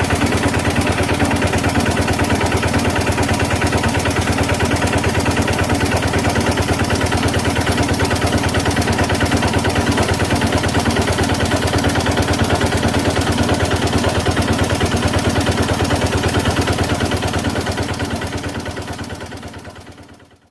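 Engine idling steadily with a fast, even pulsing beat, fading out over the last few seconds.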